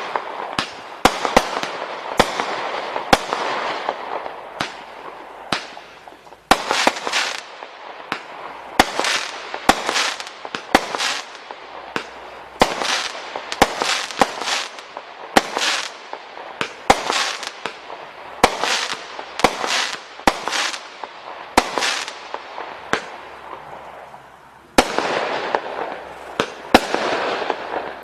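Display firework barrage cakes firing: a steady run of sharp bangs, about one or two a second, over continuous crackling. About 25 seconds in, the crackle grows suddenly louder.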